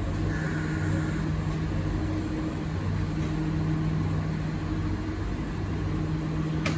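Interior of an MRT train standing at a station: a steady low hum from the train's air-conditioning and onboard equipment, with a single sharp click near the end.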